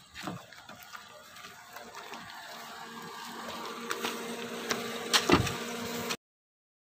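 Steady engine hum holding one pitch and growing louder, with a couple of sharp knocks about five seconds in; the sound cuts off suddenly near the end.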